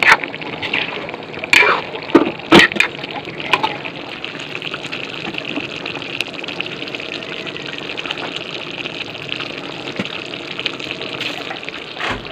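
Pot of chicken kaldereta simmering, a steady bubbling hiss, with a few sharp clicks of the ladle against the pot in the first few seconds.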